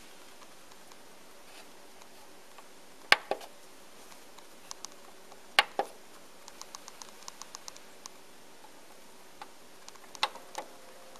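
Push buttons on an Onkyo PL-25F turntable's front control panel clicking in pairs as they are pressed and released, three times. Between the second and third pairs comes a quick run of about a dozen faint ticks.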